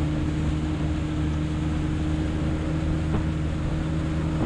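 A boat's engine running steadily at low speed, an even hum with no change in pitch.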